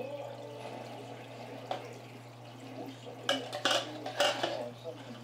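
Reef aquarium powerheads running: a steady low hum over bubbling, churning water. A little past halfway there is a brief cluster of sharp clinks and knocks.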